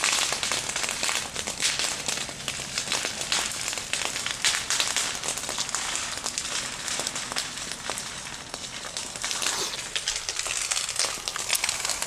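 Brush and trees burning, with dense crackling and popping over a steady hiss.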